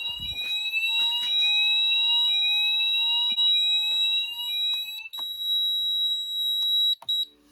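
Fire alarm sounders going off: a steady high-pitched tone together with a rising sweep that repeats about once a second. The sweeping sounder stops about five seconds in, and the steady tone cuts off near the end.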